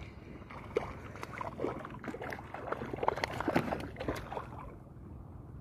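A hooked fish splashing and thrashing at the water's surface while it is fought on the line: a run of irregular splashes that dies down about four seconds in.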